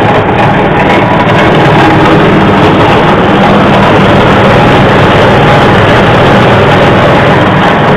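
Livestock forage chopping machine running loud and steady: a motor drone under a dense whirring noise.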